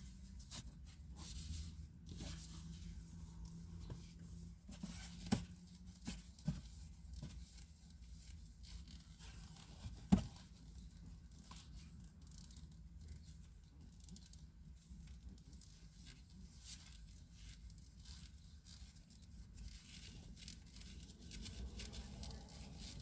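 Paper towel rubbing and wiping across a car windshield's glass: faint, scratchy strokes, with a few sharp knocks, the loudest about ten seconds in.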